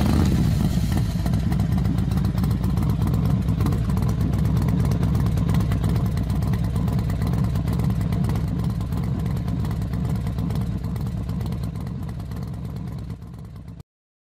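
Racing motorcycle engines running loudly at a steady pitch with a dense, rapid pulsing. The sound tapers slightly and cuts off suddenly near the end.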